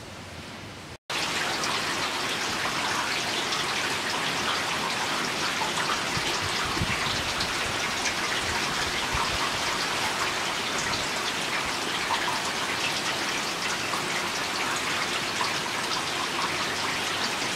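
Heavy storm rain pouring down: a loud, steady, dense hiss of countless drops, coming in at a cut about a second in after a brief softer hiss.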